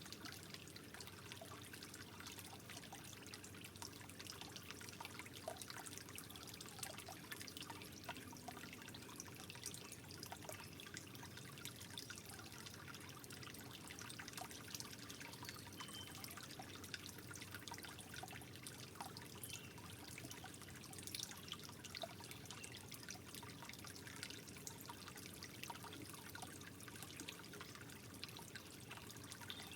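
Gentle water trickling and dripping steadily and softly, with many small irregular droplet ticks.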